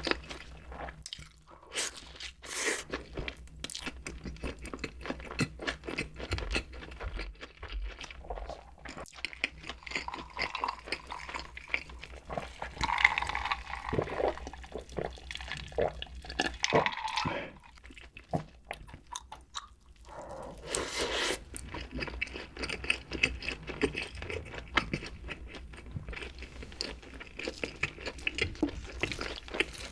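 Close-miked eating: a person biting and chewing crunchy food, with a dense run of irregular crunches and mouth clicks. There is a louder, busier stretch a little before the middle and a short lull just after it.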